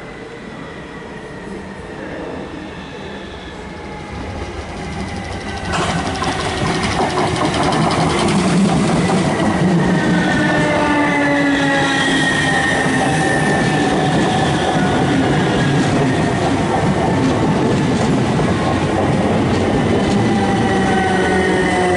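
South Western Railway Class 455 electric multiple unit running in along the platform over wheel and track noise. The sound grows sharply louder about six seconds in as the train comes alongside, then several whining tones from its traction motors fall slowly in pitch as it slows.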